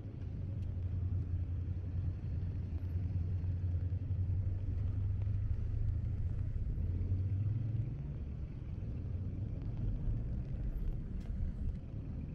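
Low rumble of street traffic, vehicles passing on a wet road, strongest for the first eight seconds and then easing off.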